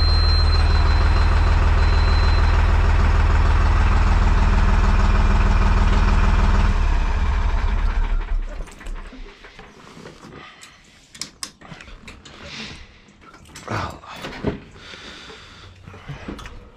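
Deutz-Fahr 55F Keyline tractor's diesel engine idling steadily at its newly adjusted idle speed. It is shut off about seven seconds in and runs down to a stop. After that come scattered light knocks and clicks.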